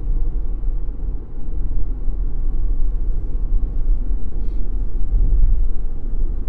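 Steady low rumble of a car's road and engine noise heard from inside the cabin while driving.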